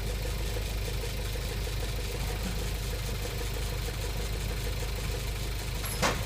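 Skoda Kodiaq engine idling steadily with a regular, rhythmic knock, the engine knock the owner is recording. A short sharp click comes near the end.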